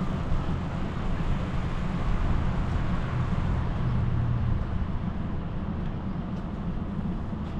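Steady low rumble of wind buffeting the microphone of a camera on a moving bicycle, with a fainter hiss above it and no distinct events.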